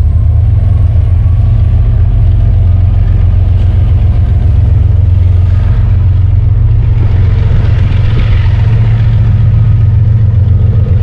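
Diesel freight train passing: the locomotives give a loud, steady low rumble, and a brighter rushing noise swells in about halfway through.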